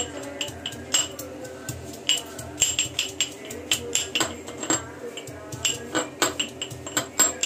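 Steel pestle pounding and grinding in a stainless-steel mortar: irregular metallic clinks, about two to three a second, over background music.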